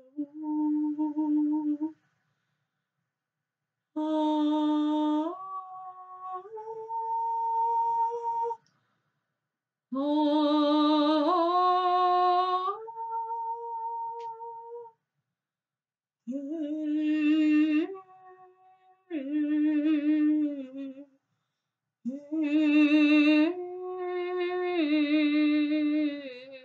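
A woman's voice improvising slow, wordless sung notes in six phrases with pauses between them. Each note is held and steps up or down to the next, with a slight waver.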